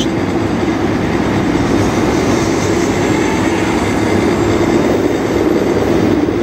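Helicopter running steadily, a loud, unbroken mechanical drone with no change in pitch.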